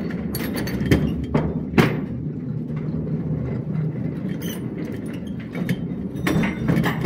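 Vintage battery-powered electric mine locomotive (trammer) rolling along its track on steel wheels: a steady low rumble, broken by a few sharp clanks and knocks from the wheels and rails.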